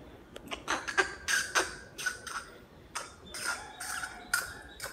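A domestic cat eating rice and fish from a plate: an irregular run of quick chewing and smacking clicks, a few each second.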